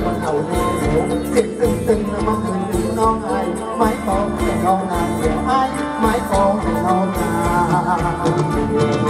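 Thai ramwong dance band playing live: a steady beat of percussion hits under a melody line carried by sustained, wavering pitched instruments.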